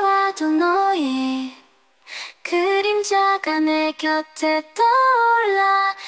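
A woman singing a Korean song, holding notes and stepping between pitches, with a short pause about two seconds in.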